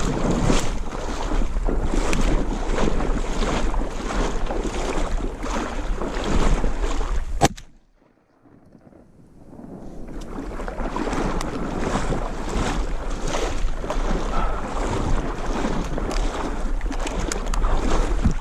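Wind buffeting the camera microphone, a loud rushing with a low rumble. It cuts off sharply with a click about seven seconds in and fades back up a couple of seconds later.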